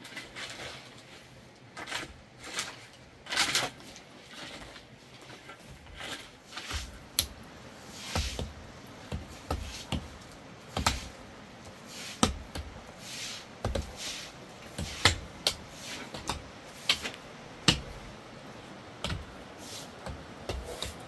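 Shovel scraping and a pickaxe striking a rocky earth floor: irregular sharp hits, some with a dull thud, about one or two a second, with scraping between them.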